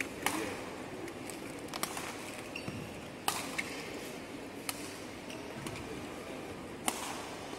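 Badminton rally: rackets striking a shuttlecock, five sharp cracks about a second and a half apart, over a low steady hall background.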